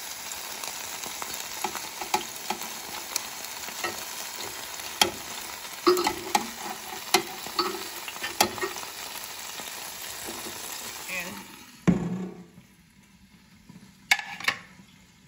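Pork barbecue skewers sizzling on a Ninja Foodi indoor grill's grate, with metal tongs clicking against the skewers and grate as they are turned. The sizzle stops about eleven seconds in, followed by a loud knock and a couple of sharp clicks.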